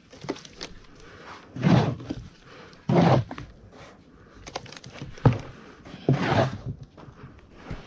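Wet cement mix being scooped off a board into a plastic bucket with a flat trowel: three scraping scoops, with scattered short clicks and one sharp knock between the second and third.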